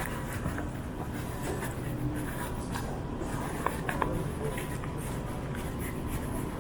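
Airport terminal ambience: a steady low hum with a faint thin tone, and a few scattered sharp clicks, the clearest two close together about three and a half to four seconds in.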